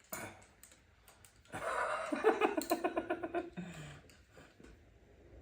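A short click, then a person laughing for about two seconds in a quick run of even 'ha-ha' pulses that ends on a low note.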